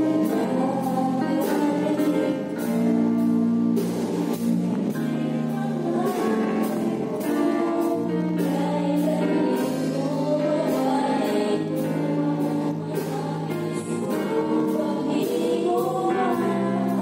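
A gospel worship band playing: singing over keyboard chords and a steady drum beat.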